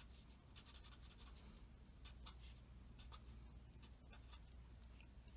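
Faint scratching of a pen on paper: short back-and-forth shading strokes along a number line, then writing a label, over a low steady hum.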